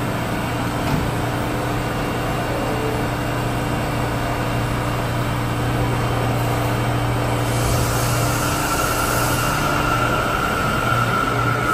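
New York City subway train standing at the platform with a steady hum. About seven and a half seconds in a hiss of air comes up, then a whine that rises slightly in pitch as the train starts to pull out.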